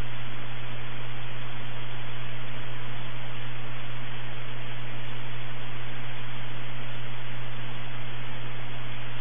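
Air-traffic-control radio channel between transmissions: a steady hiss of static with a low hum under it, and no voice.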